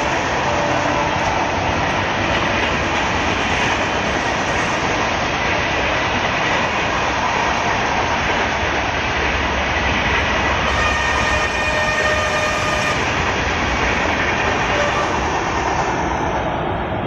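Humsafar Express passenger coaches passing at speed: a steady, loud rush of steel wheels on rail with some clickety-clack over the rail joints, and faint high ringing tones about two-thirds of the way through.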